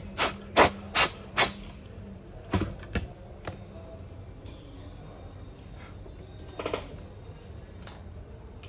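Sharp clicks and taps of a laptop motherboard and parts being handled and set down on a silicone repair mat: four quick clicks in the first second and a half, two more around three seconds in, and a short rattle of taps near the end.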